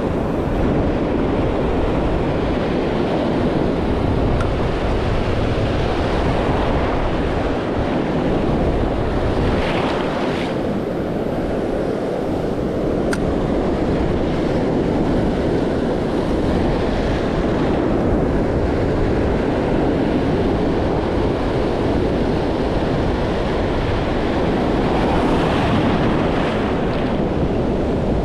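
Ocean surf washing steadily against the shore, mixed with wind buffeting the microphone. The wash swells about ten seconds in and again near the end.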